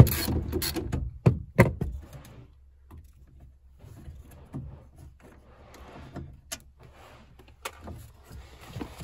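Ratchet wrench clicking rapidly as it backs out a sliding-door latch bolt, stopping about a second in after two sharper clicks. Then light handling of the loose bolt and latch parts, with a few small clicks.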